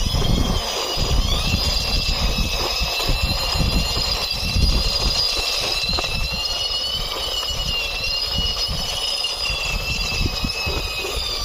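Toy police helicopter pushed along by hand: a steady high whine that rises about a second in and falls away at the end, over a low rumble of its wheels rolling on the ground.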